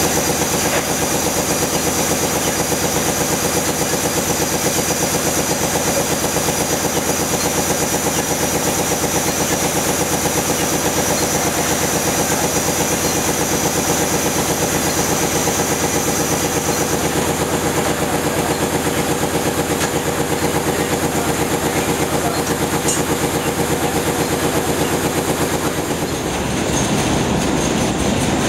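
Silk-reeling machinery running with a steady, fast rhythmic clatter. Near the end the sound changes as a re-reeling machine with fast-spinning reels takes over.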